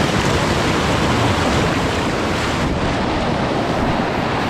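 Mountain stream water rushing steadily over rocks, a loud, even hiss and roar of turbulent current.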